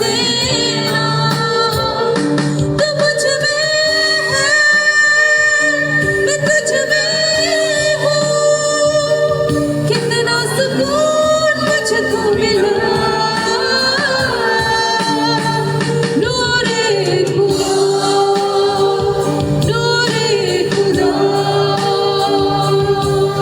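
Christian worship song: a sung melody with long held and gliding notes over sustained accompaniment chords.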